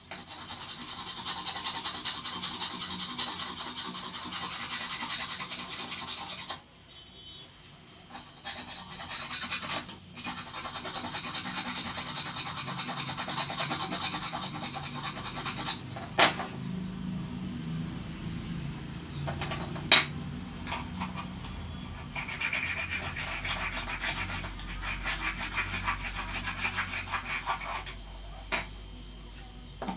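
Abrasive rubbing on metal to strip rust, going in rapid rasping strokes. It comes in three long passages with short pauses between them, and a few sharp clicks.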